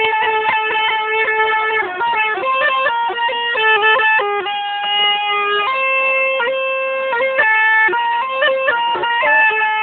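A shrill, reedy folk melody in the style of a zurna: one continuous line of held notes stepping up and down with quick ornamental flicks, with no pauses for breath.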